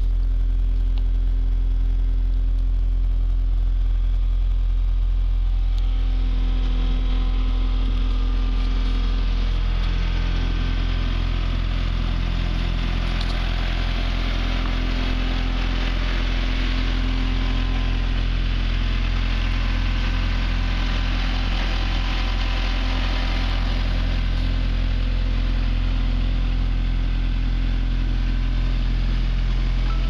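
Case SR130 skid steer loader's 49 hp diesel engine idling steadily. It is heard from inside the cab at first, then from outside beside the machine.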